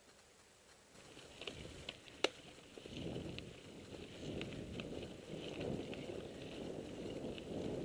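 Mountain bike rolling over a dirt trail: tyre rumble and rattling, with scattered sharp clicks and one loud click a couple of seconds in. It starts faint and gets louder and busier from about three seconds in as the bike picks up pace.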